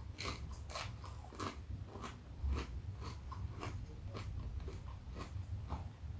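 Close-miked chewing of crispy chicken nuggets: a steady run of crunches, about two to three a second.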